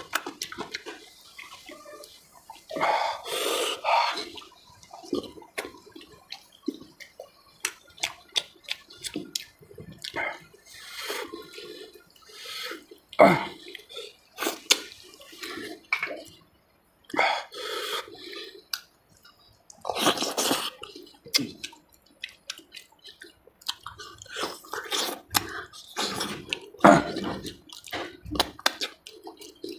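Close-up wet eating sounds: chewing, lip-smacking and sucking on mutton curry and marrow bones. Short irregular smacks run throughout, with a few longer, louder slurps.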